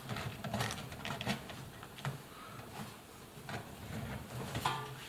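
Faint handling noises from a rubber washing-machine door seal being pushed and stretched onto the tub's front lip: irregular rubbing, rustles and light clicks.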